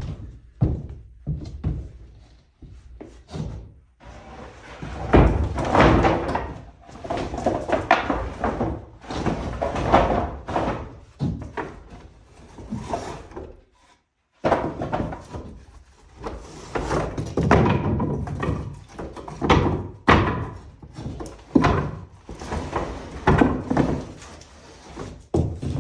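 Scrap boards and lumber being pulled from a pile and thrown down, giving a long run of irregular wooden clattering, knocks and thuds, with a brief gap about 14 seconds in.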